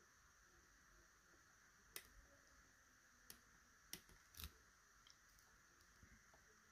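A handful of faint, scattered clicks from a short hook pick working the pins inside a Mauer NW4 lock cylinder, over a steady faint hiss.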